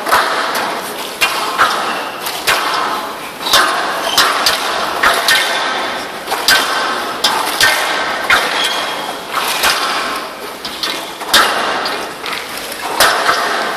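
Squash rally on a glass court: the ball is struck by the rackets and smacks off the walls in an irregular run of sharp cracks, about one to two a second.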